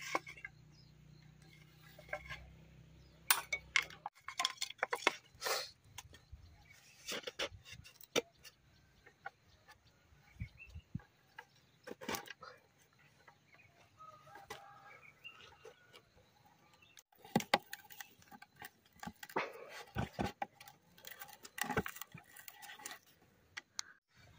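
Split bamboo pieces knocking and clattering against each other and the ground as they are handled and fitted into a square frame, in irregular clusters of short knocks.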